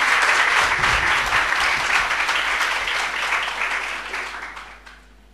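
Audience applauding at the end of a talk, a dense patter of many hands that fades away over the last second or so.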